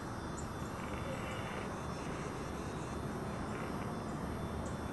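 Quiet outdoor ambience: a steady low hiss and rumble with faint insect chirring above it.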